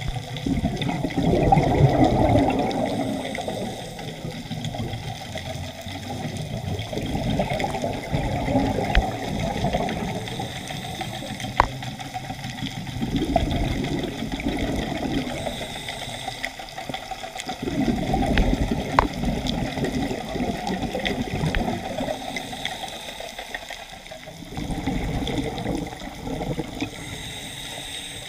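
Scuba diver's exhaled bubbles from the regulator, heard underwater, rushing and gurgling in surges about every five to six seconds, with a few sharp clicks between them.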